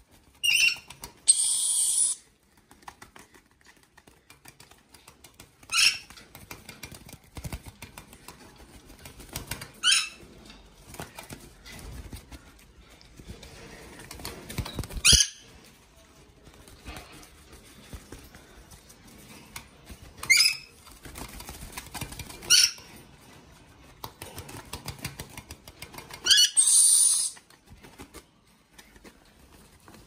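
Young yellow-streaked lories flapping and rustling their wings while being scratched by hand. Short shrill squawks come every few seconds; two of them, about a second in and near the end, are longer, harsh hissing screeches.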